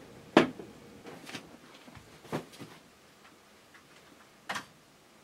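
A few sharp knocks and clicks of a beer glass and other objects set down on a wooden desk. The loudest comes about half a second in, with fainter ones after it and one more near the end.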